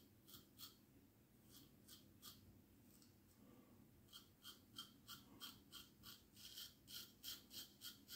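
Faint, short scratchy strokes of a vintage safety razor with a home-honed wedge blade cutting through stubble: a few scattered strokes, then a steady run of about two to three strokes a second from about four seconds in.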